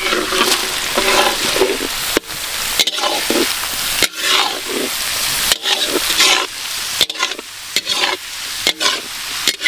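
Sliced red onions sizzling as they fry in hot mustard oil in a pan while being stirred, with several sharp clicks at irregular moments.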